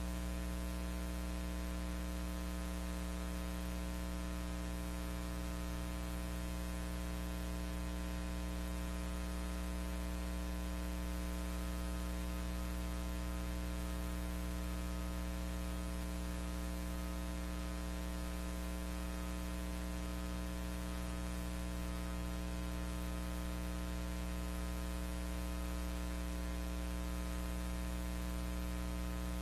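Steady electrical mains hum with a stack of unchanging overtones and a constant background hiss. There is no sound of the steam locomotive: the film is silent.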